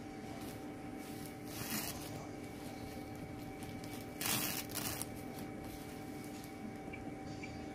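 Short rustling and tearing sounds, about two seconds in and louder around four to five seconds in, as gloved hands handle dialysis bloodline tubing, tape and gauze, over a steady machine hum with a few held tones.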